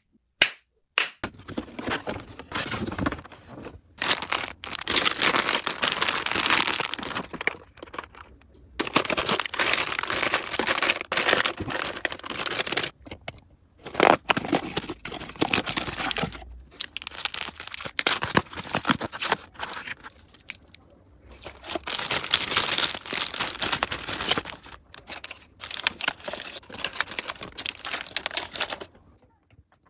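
Cardboard and plastic packaging being handled: a cardboard box torn open, and plastic snack wrappers crinkling. The rustling comes in stretches of a few seconds with short pauses between them, and sharp clicks and taps run through it.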